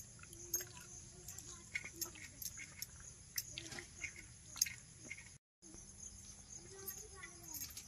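Close-up eating sounds: wet chewing and lip smacks as a mouthful of rice and greens is eaten by hand, with fingers working food on a steel plate. A steady high-pitched insect drone runs behind.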